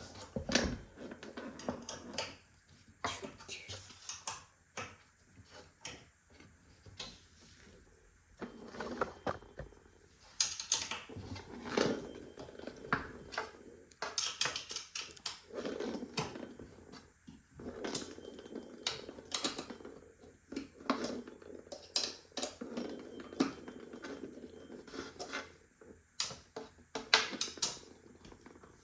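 Irregular clicks, taps and light knocks of metal hardware and wooden bed-frame parts being handled while screws are fastened into the frame.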